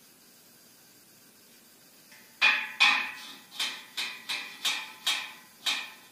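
Hammer blows on a welded steel square-tube frame: about eight sharp strikes, each ringing briefly, about half a second apart, the first two loudest.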